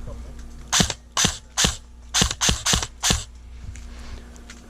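Airsoft gun fired seven times in quick single shots, sharp mechanical cracks about a third to half a second apart.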